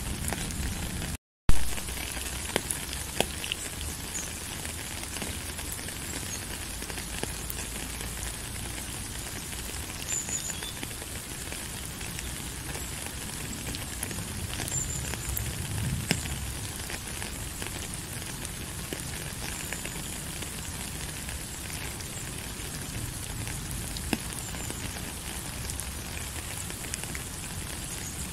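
Steady rain hiss with scattered sharp ticks of drops. About a second in the sound cuts out for an instant and comes back with a sharp click.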